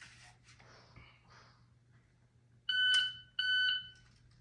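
Electronic timer giving two loud, steady half-second beeps in quick succession about three seconds in, typical of a shot timer's start signal for a dry-fire drill. Faint rustles of handling come before them.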